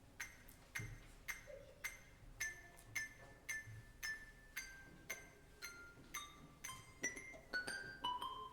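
Handbell choir playing a slow melody: single struck bells ringing out about two notes a second, stepping downward in pitch, with notes starting to overlap into chords near the end.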